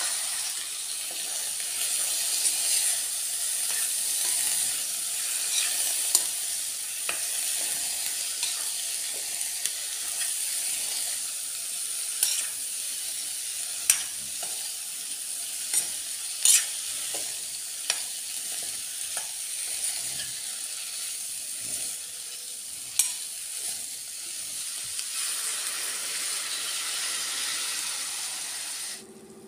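Cauliflower and green peas sizzling as they fry in a stainless steel pan, with a steel spoon clicking and scraping against the pan as they are stirred. The sizzling cuts off suddenly near the end.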